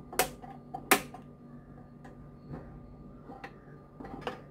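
Hand-held spark gas lighter clicking at a gas stove burner to light it: two sharp clicks in the first second, then a few fainter ticks near the end.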